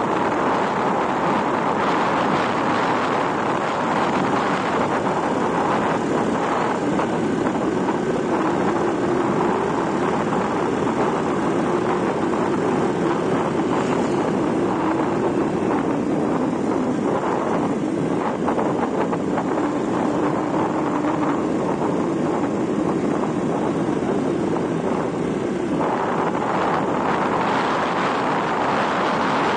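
Steady rush of wind over the microphone and the drone of a motorbike riding at speed along a road, with no break or change in pace.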